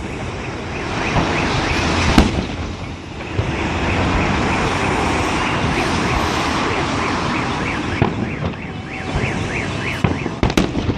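Fireworks salute crackling, with sharp bangs about two seconds in and near the end, over a car alarm warbling up and down.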